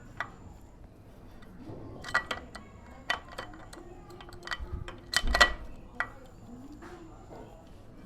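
Metal tools and engine parts clinking and knocking together, about a dozen scattered sharp clicks with a louder cluster about five seconds in.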